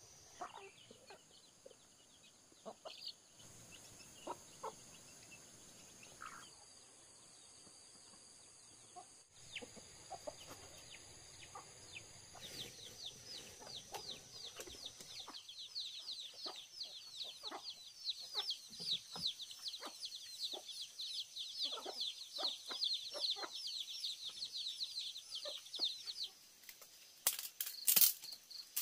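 Chickens clucking, over a steady high-pitched insect trill. About halfway in, a fast run of repeated high chirps starts and lasts more than ten seconds, and a loud burst comes near the end.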